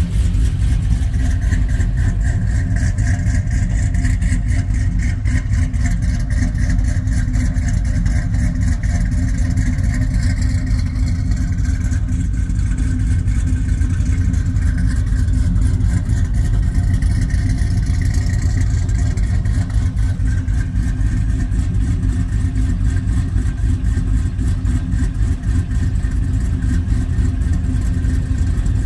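Chevrolet Trailblazer SS's 408 cubic-inch stroker V8 (built on a 6.0L LQ9 iron block, BTR stage 3 camshaft, long-tube stainless headers) idling steadily, with no revs.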